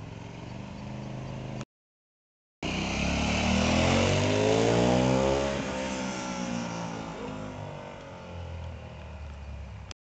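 KTM 990 Adventure's LC8 V-twin engine through a GPR aftermarket exhaust. It runs steadily at low revs, breaks off for about a second, then comes back loud as the bike accelerates, its pitch climbing and then falling away as it rides off and fades.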